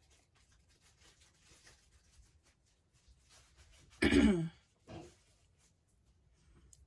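A woman clears her throat once, loudly and briefly, about four seconds in, with a shorter, softer sound about a second later. Otherwise only faint clicks and rustles of small things being handled.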